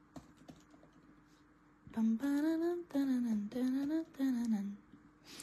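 Quiet clicking of laptop keys, then a person humming a short tune of about four rising and falling notes over the typing.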